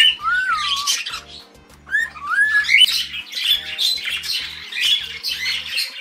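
Cockatiels calling loudly, with wavering whistled calls in the first half and then a run of harsh squawks, the screaming of hormone season. Background music with low steady pulses plays underneath.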